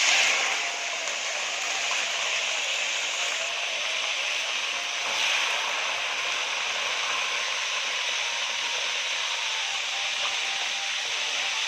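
Small fish frying in hot oil: a loud, steady sizzle.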